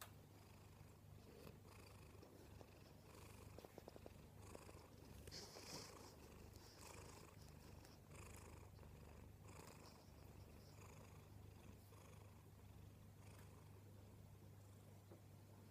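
A cat purring softly while asleep on a lap, with a faint breath heard about once a second.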